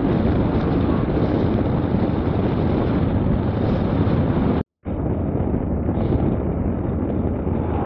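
Wind rushing over the microphone with the running of a Harley-Davidson touring motorcycle's V-twin at highway speed. The sound cuts out completely for a moment a little under five seconds in, then resumes slightly duller.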